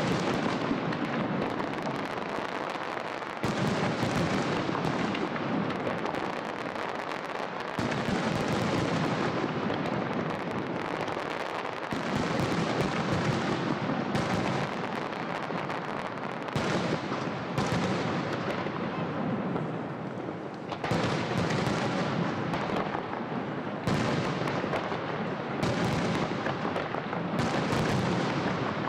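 Aerial fireworks display: a dense, unbroken barrage of shell bursts and crackle, with a new volley of bangs every few seconds.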